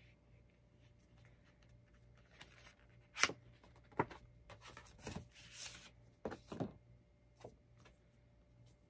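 Paper cards and inserts handled by hand: a string of crisp rustles and taps as they are pulled out and leafed through, the sharpest a little past three seconds in and at four seconds.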